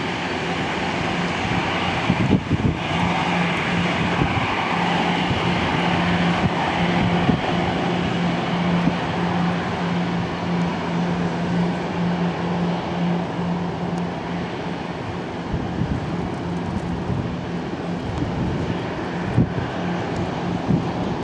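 Four-engine Airbus A340 jet taxiing at low power, its engines giving a steady rush with a low hum beneath.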